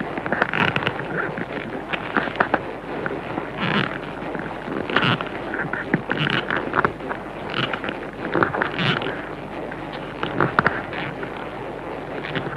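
Film monster sound effect for Gezora, the giant cuttlefish kaiju: a steady rumbling noise with rough, crackling bursts about every second and a bit.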